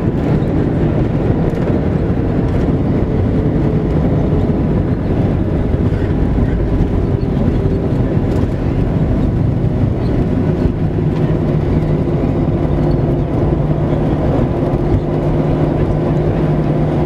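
Inside the cabin of a Boeing 737-800 rolling along the ground after landing: a steady, loud low rumble from the wheels and the idling CFM56-7 engines, with a faint engine hum whose pitch shifts slightly.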